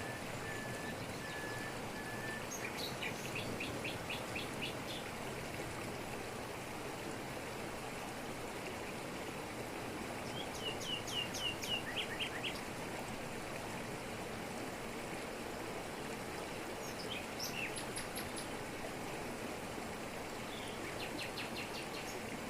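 Waterfall pouring over rocks in tropical forest, a steady rush of water. Birds call over it: a row of short even whistled notes at the start, then short runs of rapid high chirps four times.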